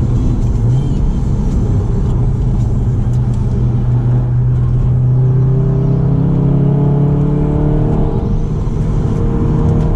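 Seat Leon Cupra 290's turbocharged 2.0-litre four-cylinder heard from inside the cabin, pulling at speed with tyre and road noise. It is a steady, loud drone whose pitch creeps slowly upward through the second half as the car accelerates.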